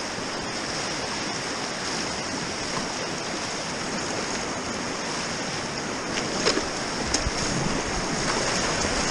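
Rushing whitewater of a river rapid running close around a kayak. Two sharp splashes from paddle strokes about six and a half and seven seconds in, and the water grows a little louder near the end.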